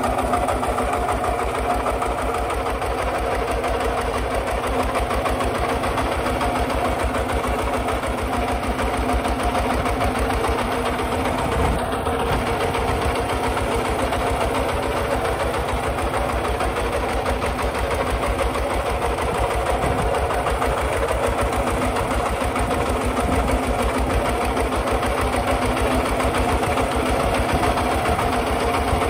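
Kubota RT140 walking tractor's single-cylinder diesel engine running steadily with an even, fast thudding beat, under load as it pulls a plough through dry soil.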